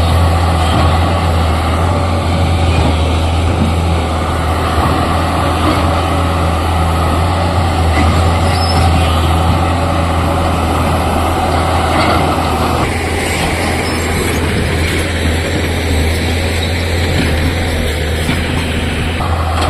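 Tata excavator's diesel engine running steadily with a deep, continuous hum; its sound changes about thirteen seconds in.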